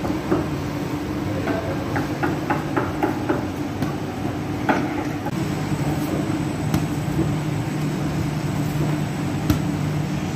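Bakery machinery running with a steady low hum that deepens about five seconds in. A quick run of about six light knocks comes about two seconds in, with a few single clicks later.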